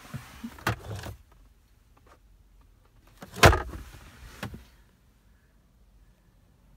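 Handling noise from someone shifting about inside a pickup's cab with a hand-held camera: rustling and small clicks in the first second, then one sharp knock about three and a half seconds in.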